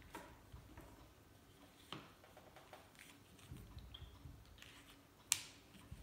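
Plastic long-nozzle gas lighter being handled and fitted back together by hand: light clicks and handling noise, with one sharp click about five seconds in.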